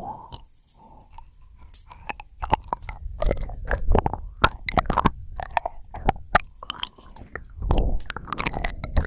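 Close-miked wet mouth sounds from an ASMR performer: irregular smacks and clicks, sparse at first, then denser and louder from about two and a half seconds in.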